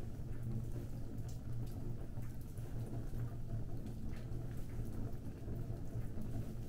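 Fire burning with scattered small crackles and pops, over a steady low hum.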